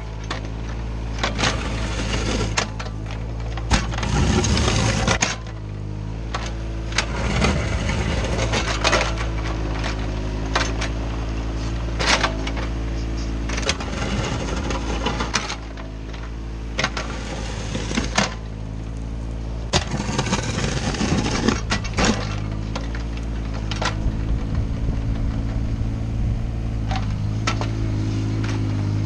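Komatsu mini excavator's diesel engine running steadily under working load, with frequent sharp clanks and crunches as the steel bucket scrapes and drops gravel.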